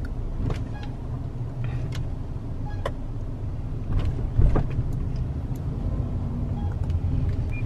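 Low, steady road and engine rumble inside a moving car's cabin, with faint scattered clicks and rattles and one loud thump about four and a half seconds in.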